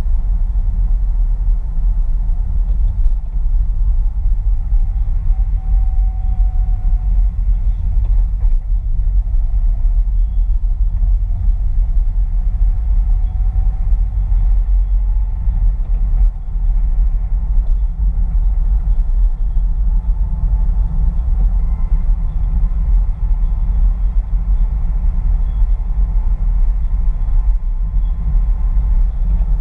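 Car driving at steady speed, heard inside the cabin: a loud, continuous low rumble of engine and road noise.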